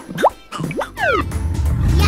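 Cartoon sound effects: a few quick swooping pitch slides, rising and then falling, then a low rumble that starts up about a second in and grows louder.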